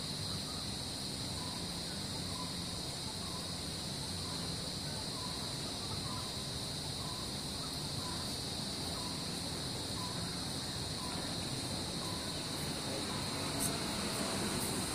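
Steady high-pitched drone of insects, such as cicadas or crickets, with a bird repeating a short call about three times every two seconds through most of it, over a low steady rumble.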